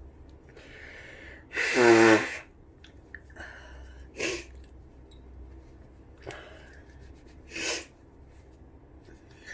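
A person with the flu lets out one loud, voiced sneeze about two seconds in, followed by several shorter, quieter breathy sounds.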